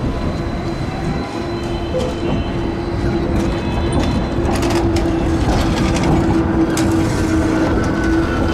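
Tram running along its track: a steady motor hum over the rumble of the wheels on the rails. A few sharp clicks from the wheels on the track come around the middle.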